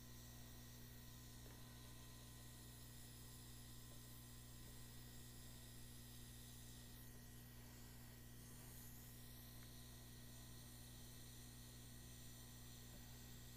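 Near silence: a steady low electrical hum with a faint hiss.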